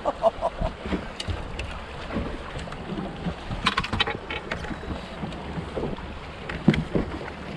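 Wind buffeting the microphone and choppy waves slapping against a boat's hull, with scattered light clicks and one sharp knock on the boat about a second before the end.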